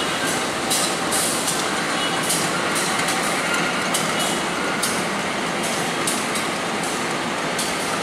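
Steady train noise at a railway station, with irregular sharp metallic clicks and rattles over it.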